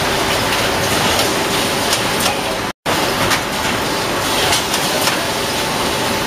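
Steady machinery din of a washing powder filling and packing line, with scattered clicks and knocks from the packing machine's mechanism over a faint steady hum. The sound cuts out for a split second just under three seconds in.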